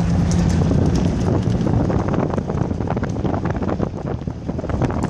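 Wind buffeting the microphone held at the window of a moving truck, over the low rumble of the truck driving on a dirt road, with irregular knocks and bumps.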